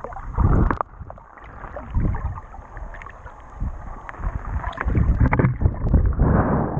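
Muffled underwater water noise heard through a GoPro's waterproof housing: water rushing and bubbling past the camera in low rumbling surges, about half a second in, around two seconds in, and again from about five seconds on, with scattered crackles. The last surge comes as swim fins kick close to the camera.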